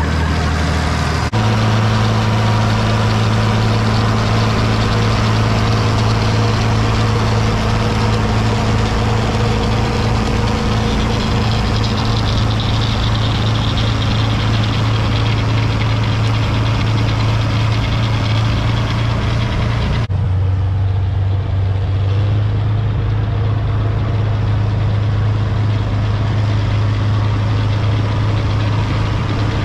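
International 1256 tractor's six-cylinder turbo diesel engine running steadily under load, driving a front-mounted Schweiss snow blower, with the rushing hiss of the blower throwing snow. The sound changes abruptly about a second in and again about two-thirds of the way through.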